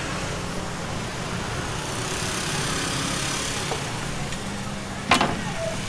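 Steady hum and hiss of street-stall background noise, with one sharp clack about five seconds in.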